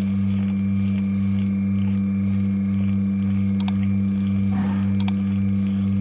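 A loud, steady low electric hum, like a motor or pump running, with two quick double clicks, one a little after halfway and one near the end.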